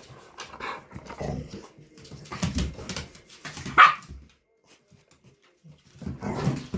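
A chihuahua and a pit bull play-fighting: bursts of barking and growling, with one loud sharp bark a little before four seconds in, a pause of about a second and a half, then another burst near the end.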